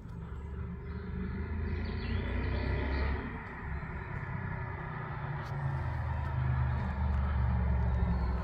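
BMW E46 with a swapped-in Toyota 3UZ V8 engine approaching, its engine running and growing louder as it nears. The engine note eases off briefly about three seconds in, then builds again.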